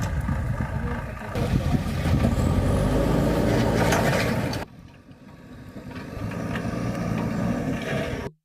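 Diesel engine of a demolition bulldozer running under load. Its sound drops abruptly about halfway through, then builds back up.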